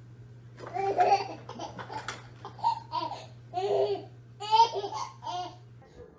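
A baby laughing in a series of short bursts, with some babbling.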